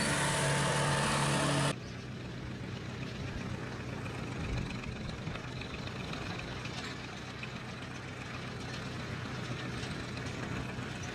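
Engine running with a steady hum, which cuts off abruptly about two seconds in and gives way to a quieter, rougher machine running noise.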